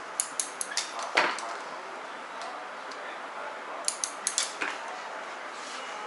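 Hair-cutting scissors snipping through hair in two quick runs of about five or six snips, one at the start and one about four seconds in, with a louder knock about a second in.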